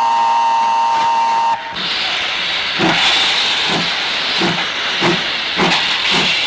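Steam locomotive whistle blowing one steady note, cutting off about a second and a half in. Then loud steam hiss with a low rhythmic beat about every half second.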